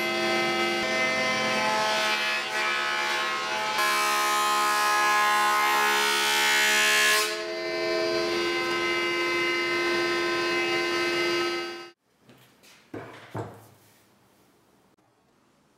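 Thickness planer running with a steady whine, louder and rougher for about three seconds in the middle as an end-grain cutting board is fed through the cutterhead. The machine sound cuts off abruptly near the end, followed by a couple of short knocks.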